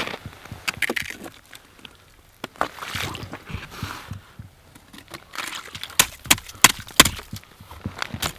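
Ice skimmer scooping slush and ice chips out of an ice-fishing hole: irregular sharp knocks and crunchy scrapes as the metal scoop hits the ice, with a cluster of louder knocks about six to seven seconds in.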